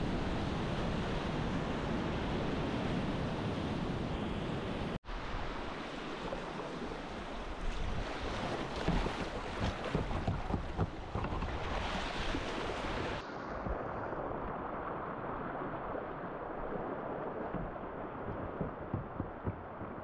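Rushing river whitewater with wind buffeting the microphone. The sound breaks off for an instant about five seconds in, then carries irregular sharper splashes in the middle before turning duller.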